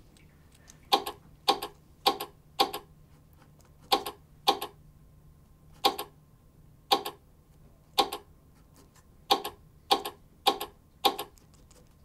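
A Sphero robot clicking out a Morse code message: a series of short, sharp clicks in spaced groups, opening with four clicks about half a second apart and then two more after a pause, the dots of H and I.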